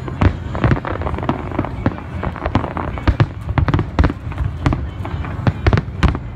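Aerial fireworks shells exploding one after another: sharp bangs at irregular spacing, a couple a second, over a continuous low rumble.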